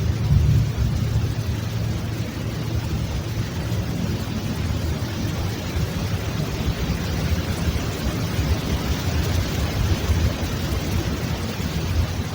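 A continuous low rumble noise with a steady hiss over it, fluttering slightly in level.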